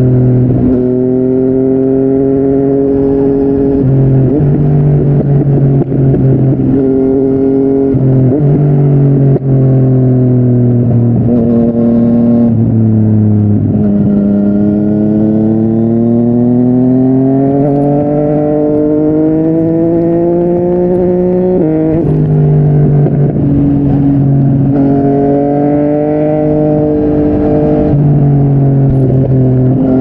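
Yamaha MT-09's inline three-cylinder engine through a Yoshimura R55 slip-on exhaust, riding under load. The pitch steps with several gear changes, climbs slowly through one long pull in a single gear, then drops suddenly at an upshift a little past the middle.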